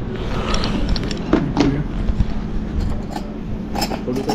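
Handling noise from a phone camera being turned around: rumbling rubs and several sharp knocks on the microphone, over low restaurant room noise.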